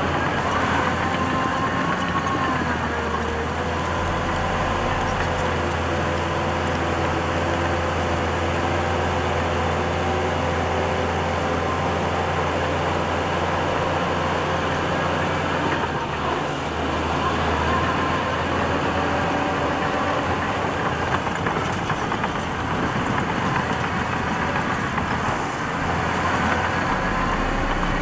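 Heavy diesel earthmoving machinery running steadily under work, with a whine that drifts up and down in pitch a few times.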